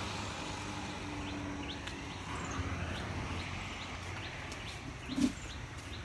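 Outdoor ambience: a low steady hum with a few short, high chirps, and one brief louder sound about five seconds in.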